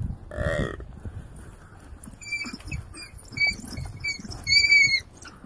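African wild dogs twittering: a run of short, high, bird-like chirps from about two seconds in, the last one held longer, over the low scuffling of the pack tearing at a downed oryx. A short, loud pitched cry about half a second in.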